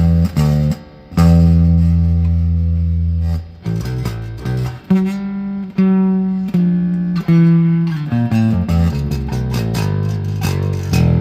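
Electric bass guitar played with a pick through a small guitar amp: a run of single notes with short pauses, one held for about two seconds near the start.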